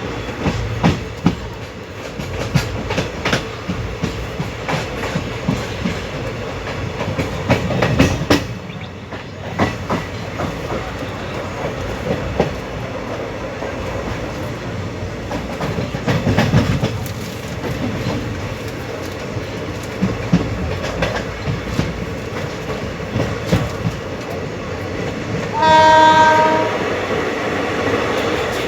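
Onboard running noise of an ICF passenger coach at speed: a steady rumble with wheels clacking irregularly over rail joints. About 26 seconds in comes one horn blast of just over a second from the hauling WAP-7 electric locomotive.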